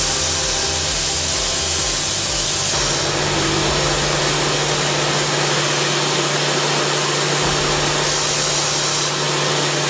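CNC machining centre mirror-milling hardened ELMAX steel (60 HRC) with a CBN ball end mill: a loud, steady hiss over a low, even hum, which shifts slightly about three seconds in.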